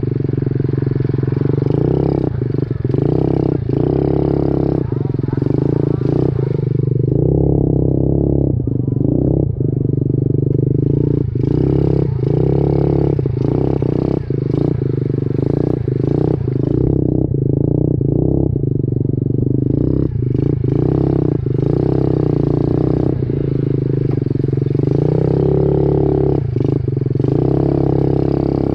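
SSR 70 minibike's small single-cylinder four-stroke engine running under way on a rough dirt trail, easing off the throttle twice for a few seconds and opening up again, with frequent clattering knocks from the bike bouncing over bumps.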